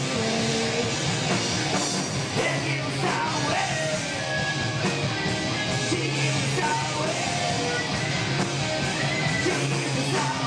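Rock band playing live and loud, with electric guitars in a dense, steady mix.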